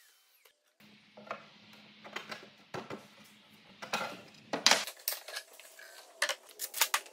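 Wooden boards and strips knocking and clattering as they are handled and set down on a workbench: a series of sharp knocks, loudest and most frequent from about four seconds in.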